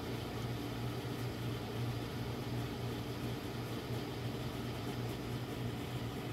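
Creality Ender 3 S1 Plus 3D printer's cooling fans running with a steady low hum as the printer boots up.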